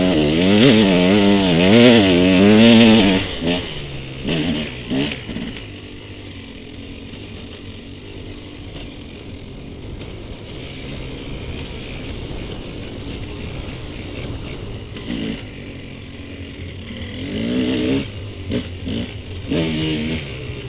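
Dirt bike engines revving hard, the pitch rising and falling quickly with the throttle, then settling to a quieter steady running for about ten seconds before revving again near the end.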